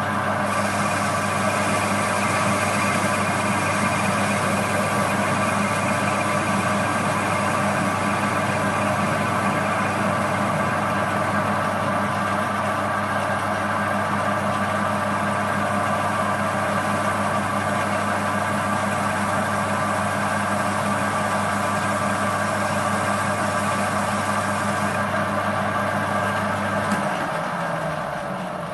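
Metal lathe running with a steady hum and gear whine while a carbide tool takes a light finishing cut along home-cast aluminium round stock. About 27 seconds in the motor is switched off and the lathe begins to run down.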